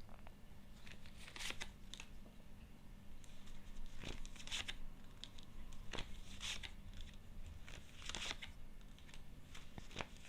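Tarot cards being handled and laid out: several short, soft rustles of card sliding on card, a few seconds apart, over a faint low hum.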